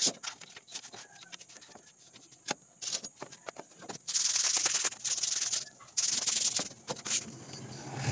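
Sandpaper on a block rubbed by hand along the edge of a plywood board: a run of scratchy sanding strokes, two longer ones of under a second each past the middle, with small taps and rustles between.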